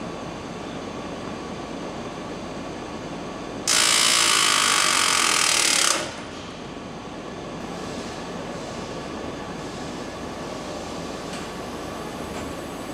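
Assembly-line machinery running steadily, with a loud hiss of about two seconds a little before the middle that starts and cuts off suddenly.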